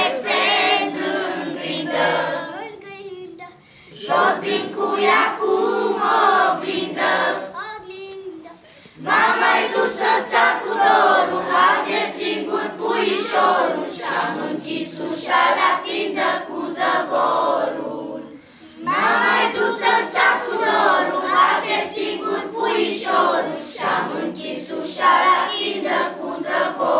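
A children's choir singing together without accompaniment, in long phrases with brief pauses between them.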